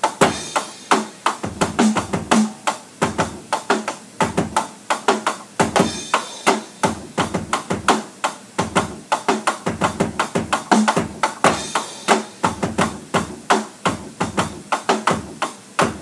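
Electronic drum kit playing a steady rock groove: bass drum and snare backbeat under a hi-hat placed on the off-beat 'e' and 'a' sixteenths rather than on the beat. A cymbal crash comes round roughly every six seconds.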